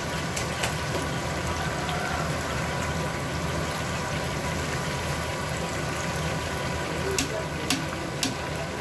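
Chicken pakodi deep-frying in a large kadai of hot oil: the oil sizzles and bubbles steadily over a low steady rumble. A few sharp metal clicks from the skimmer against the kadai come near the end.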